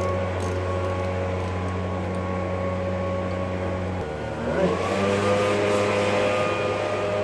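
Steady mechanical hum of a running motor holding several even pitches. About four seconds in the pitch drops, then a short rising glide, and the hum settles at a new steady pitch.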